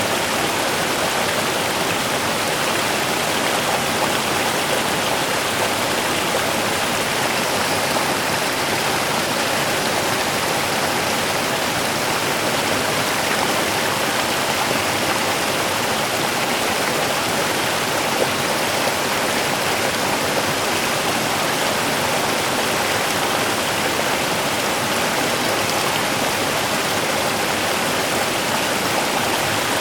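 Small river running over rocks: a steady, unbroken rush of flowing water.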